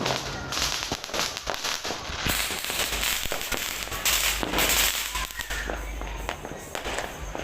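Fireworks going off in a dense, continuous barrage of many overlapping cracks and bangs with crackling hiss, loudest in two swells a few seconds apart.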